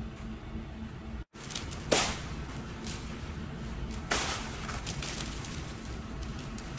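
Pearl sugar and slivered almonds scattered by hand onto glazed dough loaves and baking paper: a dry pattering rustle with two sudden loud scatters, about two and four seconds in. Before a cut about a second in, a steady low pulsing hum.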